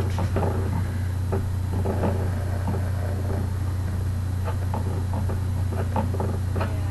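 A steady low hum throughout, with faint scattered taps and rustles as fingers press and spread cookie dough on a plate.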